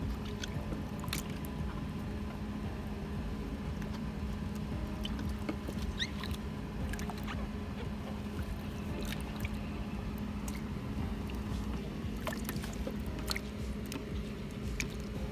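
A motor running steadily with a constant low hum, under scattered sharp clicks and taps.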